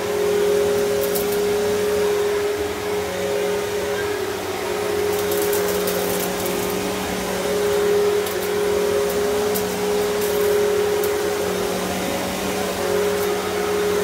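Riccar Vibrance Classic upright vacuum cleaner running over plush carpet: a steady motor whine over rushing airflow, rising and falling slightly as it is pushed back and forth.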